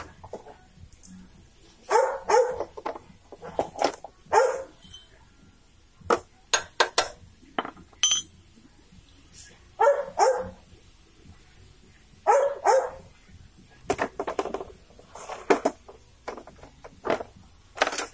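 Dog barking repeatedly, in short groups of two or three barks, with a few light metal clicks in between.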